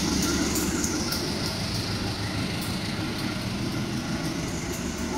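A GE CC 203 diesel-electric locomotive running light with no train behind it, its diesel engine droning steadily as it comes toward the platform.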